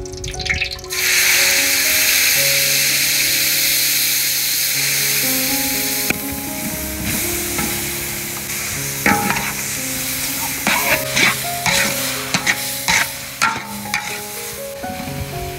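Chopped beef offal hitting hot oil in a wok, sizzling loudly from about a second in and slowly dying down. In the second half a metal spatula scrapes and clinks against the wok as the meat is stir-fried.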